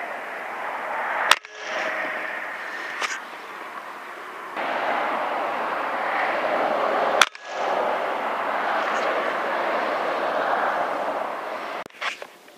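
Two sharp shots from a PCP air rifle, about six seconds apart, over a steady background hiss, with a couple of lighter clicks near the end.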